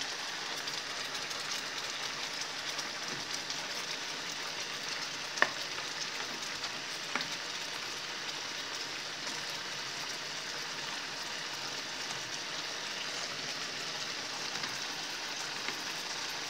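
Chicken wings simmering in a reducing sauce in a frying pan, a steady sizzling hiss. Two sharp clicks, about five and seven seconds in, are the stirring spoon knocking the pan.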